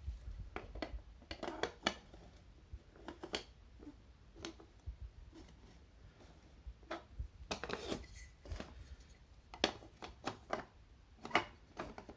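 Toy train track pieces being handled and fitted together: scattered, irregular clicks and knocks, a few louder near the end.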